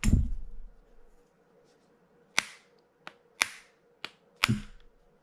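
Sharp knocks of a screwdriver being banged on a tight-fitting part of a Penn International 20 fishing reel to drive it out: a loud knock at the start, then five more at uneven gaps over the next few seconds.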